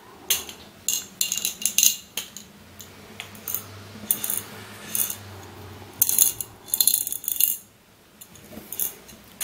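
Small steel ball bearings rattling and clicking inside a clear plastic Chadwick Miller Mind Teaser dexterity cube as it is tilted and turned in the hands, in several clusters of quick clicks with short pauses between.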